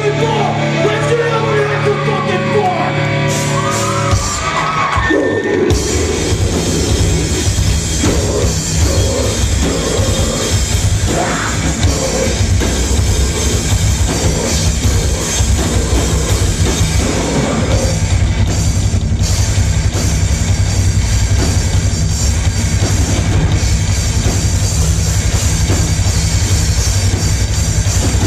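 Live heavy rock band playing loud: electric guitars, bass, drum kit and keyboard with vocals. A lighter melodic intro gives way to the full band coming in about five seconds in.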